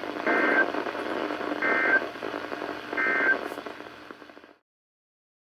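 NOAA Weather Radio SAME end-of-message signal: three short, identical bursts of warbling digital data tones about 1.3 s apart, heard through a weather radio receiver over steady static hiss. They mark the end of a severe thunderstorm warning broadcast. The hiss fades and the audio cuts off abruptly about three-quarters of the way in.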